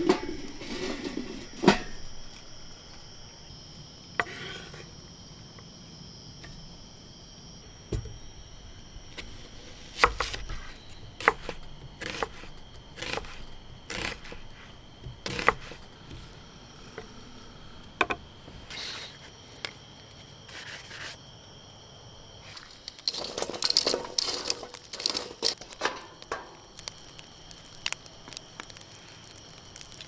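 A knife chopping vegetables on a wooden cutting board: scattered sharp knocks, with a quicker run of chops about three-quarters of the way through, and a clank of a small kettle grill's lid near the start. Under it, a steady chorus of insects.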